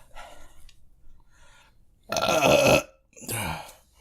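A person burping loudly about two seconds in, then a shorter, quieter burp near the end, after gulping milk to cool a mouth burned by hot chips.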